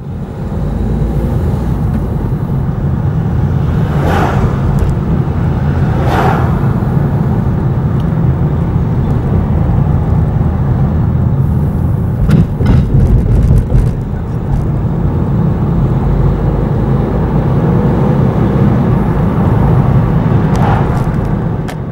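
Steady road and engine noise heard from inside a moving car, deep and rumbling, with two other vehicles passing briefly a few seconds in and a cluster of knocks about halfway through.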